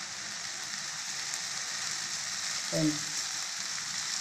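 Semolina and ghee cooking in water in a kadai on the stove, a steady sizzling hiss, as sugar is added for rava kesari.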